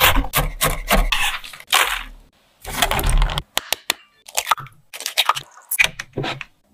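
Cleaver chopping toasted walnuts on a wooden cutting board: a fast run of knocks and crunches for about three and a half seconds. Then, after a short gap, a sparser string of lighter clicks and taps.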